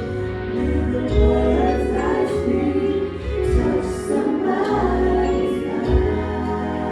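Gospel choir singing with a band: sustained sung chords over bass and drums.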